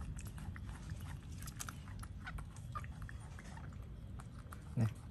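A baby monkey chewing and biting on a piece of fruit, heard as many small wet clicks. Near the end comes one brief, louder low sound that rises in pitch.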